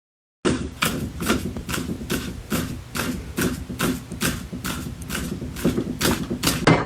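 A rapid, regular knocking, about two and a half strokes a second over a low rumble, starting suddenly near the start and stopping just before the end.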